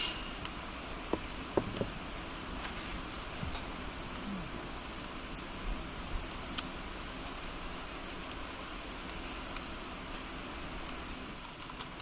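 Wood campfire crackling in a fire stand: scattered sharp pops and snaps at irregular intervals over a steady soft hiss.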